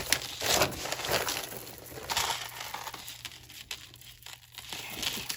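Crinkling and rustling as jewelry and its packaging are handled between pieces: irregular bursts, busiest in the first couple of seconds, then quieter.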